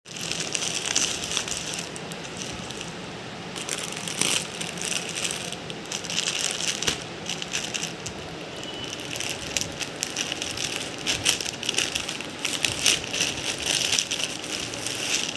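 Plastic packaging crinkling and rustling as a polythene mailer and a clear plastic bag are handled and opened, with many sharp crackles throughout.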